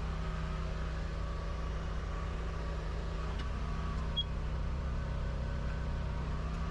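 Steady low mechanical hum, like an engine or motor running, with one faint click about four seconds in.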